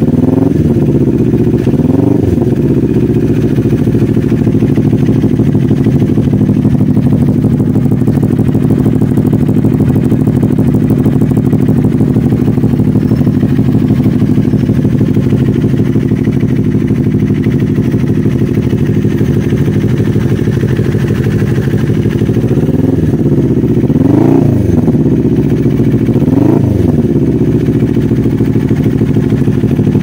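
CFMoto 400NK's parallel-twin engine idling through an aftermarket M4 muffler. The throttle is blipped twice in the first couple of seconds and twice more near the end, each rev rising and falling back quickly to idle.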